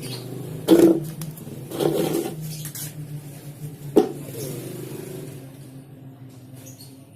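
Electric sanding machine running with a steady motor hum, swelling louder twice as it is worked against the wood, with a sharp knock about four seconds in.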